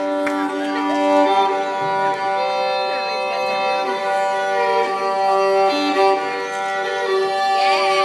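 Live violin music: several long held notes sounding together as a steady drone chord, with shorter sliding notes played over it.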